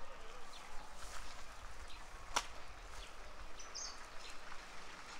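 Outdoor ambience: a steady faint hiss with a few short, high chirps and one sharp click about two and a half seconds in.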